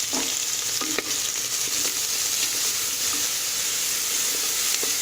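Ground shallot, garlic, pepper, cumin and fennel paste sizzling steadily in hot sesame oil in a pressure cooker while it is stirred, with a light knock about a second in.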